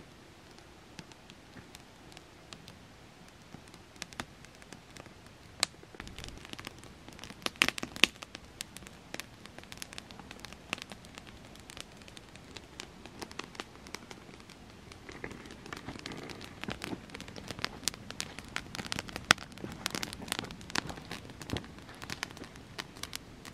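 Freshly lit wood campfire crackling and popping as it catches, a few scattered snaps at first, then the crackle growing dense from about six seconds in, with the loudest pops near eight seconds.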